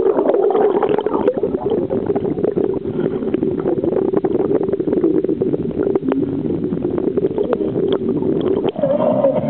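Small boat's motor running steadily with water and wind noise; music starts near the end.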